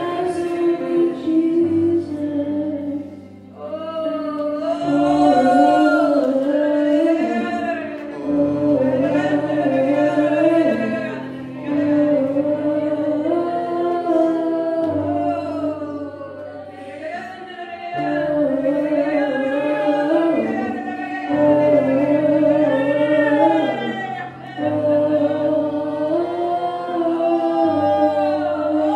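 A congregation singing spontaneous worship together, many voices rising and falling in long held phrases, over steady low sustained notes that change every few seconds.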